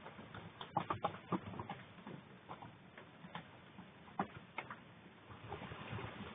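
Typhoon rain and wind as a faint steady hiss, with scattered sharp taps: a quick cluster about a second in and two more around four seconds.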